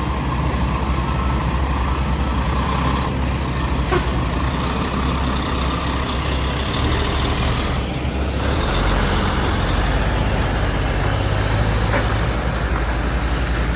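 Heavy truck engine running steadily with a low rumble. A sharp click comes about four seconds in, and a burst of air hiss about eight seconds in.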